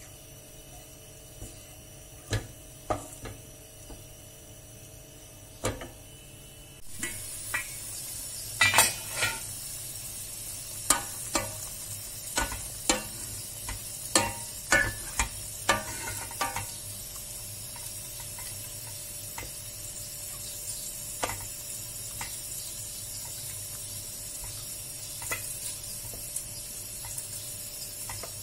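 Diced lamb simmering in its own juices, with no water or oil added, in a stainless steel pot, while a wooden spoon stirs it and knocks and scrapes against the pot. The first several seconds hold only a few knocks; then a steady hiss begins suddenly, with a run of quick spoon knocks over the next several seconds and only occasional knocks after that.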